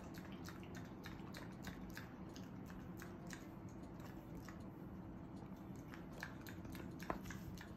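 Shiba Inu smacking and clicking its mouth and tongue, a string of short wet clicks about two or three a second with a sharper one near the end, as it works at sticky red-bean rice (sekihan) stuck in its mouth.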